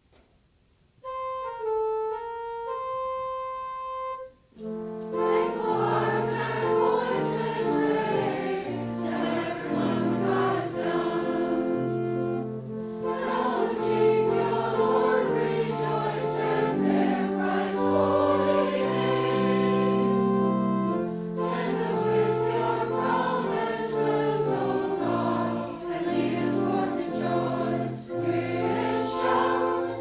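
A choir singing a hymn. It begins about a second in with a single melody line, and full harmony with low bass notes comes in about four seconds later.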